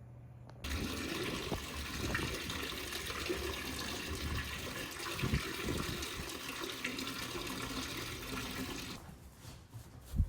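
Water running steadily, switched on abruptly about half a second in and stopping about a second before the end, followed by a couple of short knocks.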